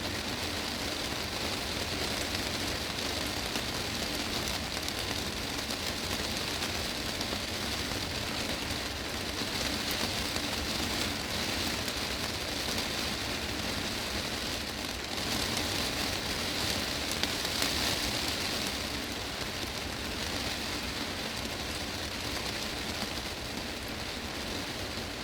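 Heavy rain drumming steadily on a greenhouse's glass roof, a dense even patter, swelling a little around the middle.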